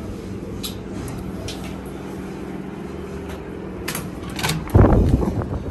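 Entrance doors being pushed open on the way out, with latch clicks around four seconds in and a loud low thud about five seconds in as the outer door swings, over a steady hum.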